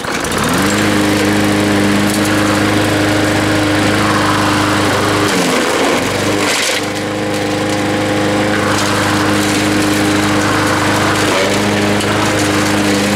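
Walk-behind push mower's small single-cylinder engine catching on the pull-start and running steadily at full speed. It pulls down briefly twice, about five and eleven seconds in, as the blade chops through eggplants, then recovers.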